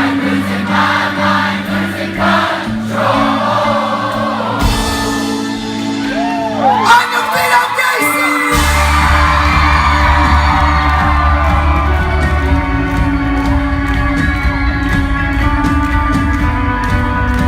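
Live rock band playing with singing, and a crowd whooping. A few seconds in the bass drops out for a break with shouts over cymbals, then the full band with heavy bass comes back in about eight and a half seconds in.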